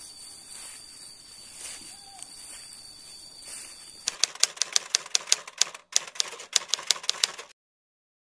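Typewriter keystroke sound effect: a rapid run of sharp clacks, about six a second with a brief break, starting about halfway through and cutting off suddenly near the end. Before it, a steady high insect buzz from the grass.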